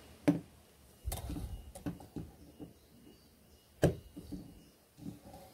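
Sharp clicks and knocks as a small die-cast toy car and a cordless drill are handled and the drill bit is set on the rivet in the car's metal base, with two loud clicks, one just after the start and one a little before four seconds in.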